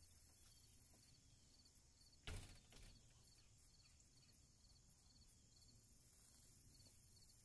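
Near silence: faint rustling and scuffing of a dog rolling on her back in grass, over faint, evenly repeated insect chirps, with one soft knock about two seconds in.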